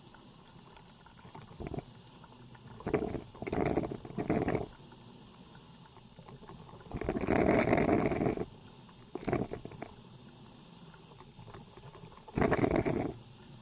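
Old coffee machine brewing in irregular noisy bursts over a faint steady background. There are short ones about three to four and a half seconds in, the longest, over a second, about seven seconds in, and another near the end.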